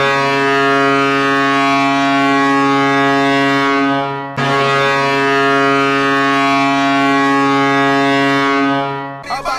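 Goal horn sounding in two long, steady blasts. The first breaks off about four seconds in and the second stops just before the end.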